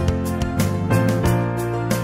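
Instrumental background music: gentle melodic notes, struck afresh about every half second.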